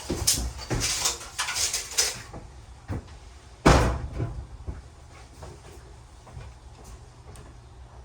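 A quick run of small knocks and clatter, then one loud knock about three and a half seconds in, followed by a few faint ticks.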